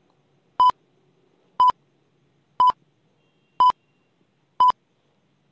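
Countdown timer beeping once a second: five short, identical high beeps with silence between them.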